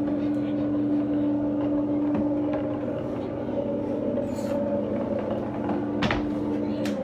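Electric winch motor of a homemade wooden dog stairlift running steadily with a hum as it hauls the box up the stairs, cutting off near the end. Two knocks sound shortly before it stops.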